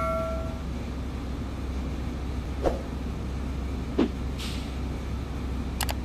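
A ringing chime from a subscribe-button animation fades out in the first half second, leaving a steady low background rumble with two soft knocks near the middle.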